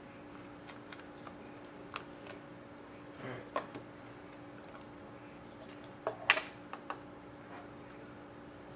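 Scattered light clicks and taps from handling a trading-card box and its packaging, the loudest cluster about six seconds in, over a faint steady hum.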